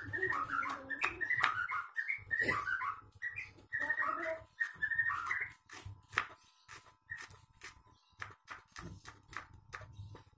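Kitchen knife slicing shallots on a wooden cutting board: light chops, about three a second. Over the chopping in the first half, an animal gives short high calls that stop about five and a half seconds in.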